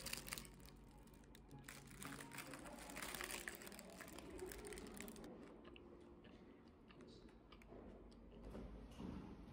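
Faint rustling and crinkling of a paper pastry box and its paper liner being handled, densest in the first few seconds.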